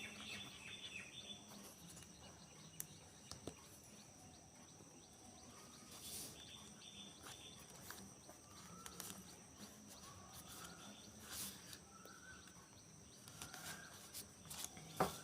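Quiet room tone with faint bird chirps in the background, short rising calls repeating every second or two in the second half, and a few faint scattered clicks.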